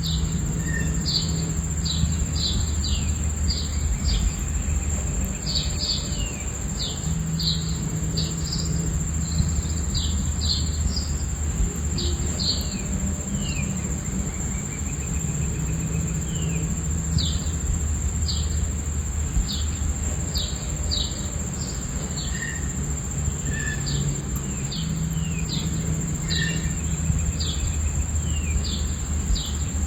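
Nature soundscape: a steady high cricket trill with many short, repeated bird chirps over it, and a constant rush of falling water underneath.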